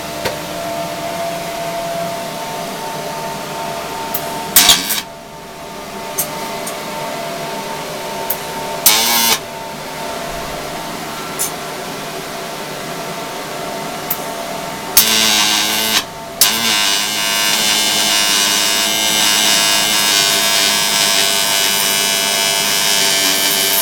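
Welding arc from a Lincoln Electric Powerwave C300 struck about fifteen seconds in, breaking off for a moment, then crackling steadily on with a consistent arc length at about 70 amps and 19.4 volts. Before the arc, a steady shop hum with a few sharp knocks.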